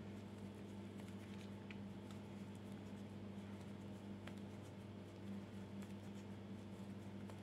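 Faint steady low hum with a few soft ticks and rustles of a crochet hook working yarn through single crochet stitches.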